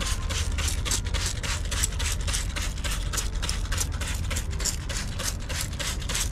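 Rapid back-and-forth hand scrubbing on a semi truck's aluminum wheel during an acid cleaning pass, about five or six strokes a second, over a steady low hum.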